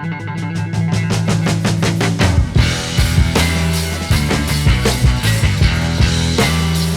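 Background rock music with electric guitar; the drums and bass come in about two seconds in, with a steady driving beat.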